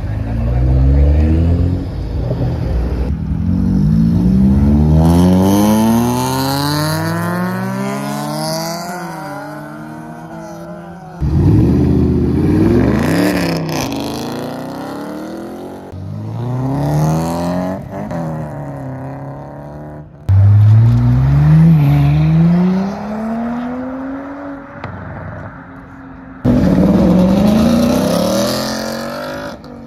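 A string of cars, among them a Porsche Cayman, a Dodge Charger and a Ford Mustang GT, accelerating hard one after another as they pull out of a car meet. Each engine revs up with a steeply rising pitch, some dropping back at a gear change and climbing again, in about six short separate pulls.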